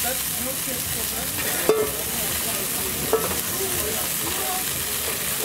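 Pieces of chicken sizzling in a nonstick frying pan, stirred and scraped with a slotted plastic spatula. The spatula knocks sharply against the pan twice, a little under two seconds in and again about three seconds in.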